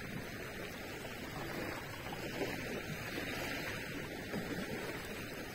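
Steady wash of small sea waves on the shore, an even noise with no distinct strikes.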